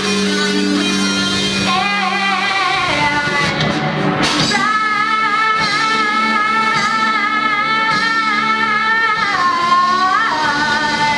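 Live rock music with singing and guitar. Midway a single long note is held for several seconds with a steady waver, then it slides up and back down near the end.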